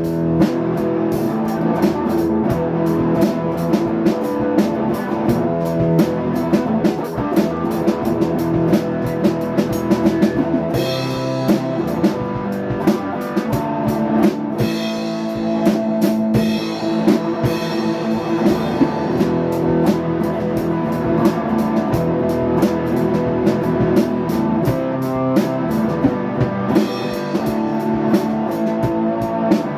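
Instrumental rock music: guitar playing over a steady drum kit beat.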